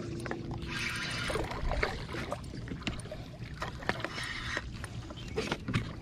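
Water sloshing against a plastic kayak hull, with scattered clicks and knocks from handling a spinning rod and reel.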